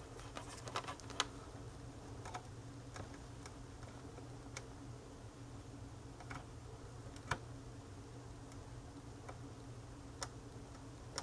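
About a dozen faint, irregular clicks and taps of multimeter test probe tips touching component leads and solder joints on a circuit board, over a low steady hum.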